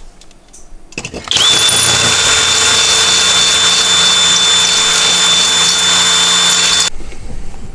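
Electric drill running at steady speed for about five and a half seconds, with a constant high whine, then stopping suddenly.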